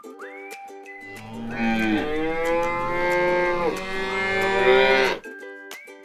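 A cow mooing: one long, drawn-out moo that starts about a second in, wavers in pitch and cuts off sharply near the end, over light plucked background music.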